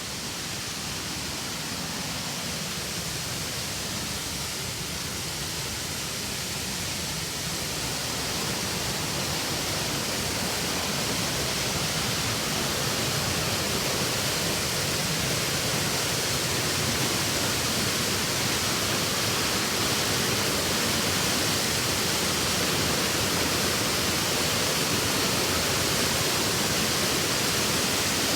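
Rushing river water pouring over rocks, a steady roar that grows gradually louder.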